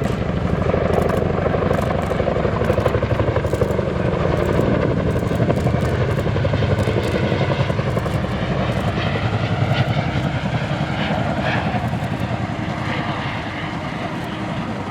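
Boeing CH-47J Chinook tandem-rotor helicopter flying, its rotor blades beating in a fast, steady throb.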